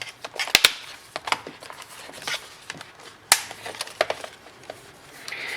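Irregular sharp clicks and snaps as the inner frame of a Samsung Galaxy Tab A 10.1 (SM-T510) tablet is pressed back on and its clips catch. The loudest snaps come about half a second in and about three seconds in.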